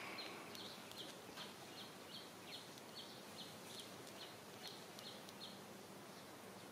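Faint outdoor ambience: a regular series of short, high chirps, a little under three a second, over a low hiss, stopping about five seconds in.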